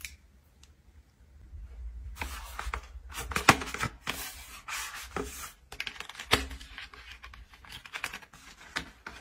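Cardboard packaging being handled close up: a box of scalp-serum vials slid open from its sleeve and its tray handled, with rustling scrapes and several sharp taps, the loudest about a third of the way in.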